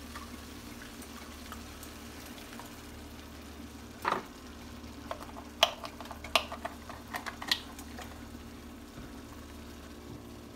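Onion and mushroom gravy bubbling in a skillet as a wooden spoon stirs it, over a steady low hum. The spoon scrapes the pan about four seconds in, then a string of light knocks and scrapes follows over the next few seconds.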